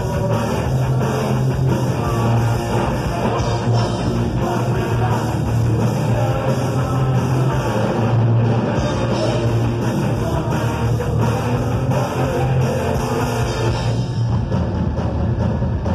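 A live rock band playing through stage amplification: electric guitars, bass guitar and a drum kit.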